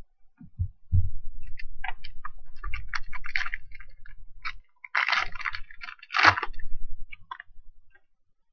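A trading-card pack wrapper crinkling and tearing as it is ripped open by hand, over dull handling bumps. Two louder rips come about five and six seconds in.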